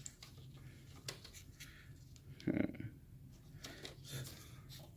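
Faint clicks and scrapes of a plastic wiring-harness plug being handled and worked toward its socket, with a brief louder low sound about halfway through.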